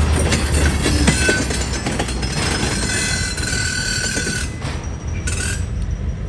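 Tank car's steel wheels rolling slowly along the rail, with scattered clicks and creaks and a thin high squeal from about two and a half to four and a half seconds in. A low rumble fades out in the first second.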